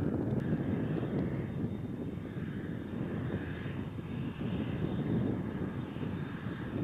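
F/A-18 Hornet's twin jet engines running at high power on the runway with afterburners lit: a steady rumble with a fainter, wavering higher hiss over it.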